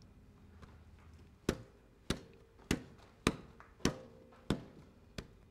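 Hammer tapping on steel at the excavator's quick-coupler pin joint, working a thick shim into the gap. There are seven even strikes about every 0.6 s, each with a short metallic ring.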